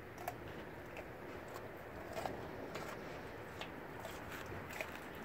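Blue Bay Shepherd chewing a raw red sweet bell pepper, giving faint, irregular crisp crunches and wet mouth smacks.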